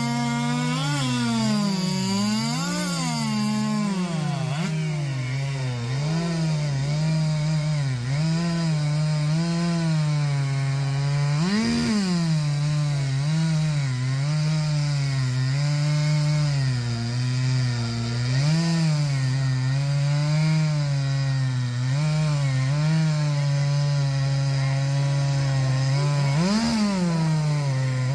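Two-stroke racing chainsaws cutting through timber at full throttle. The engine pitch sags and wavers as the chains bog in the wood, with sharp revs up about twelve seconds in and again near the end.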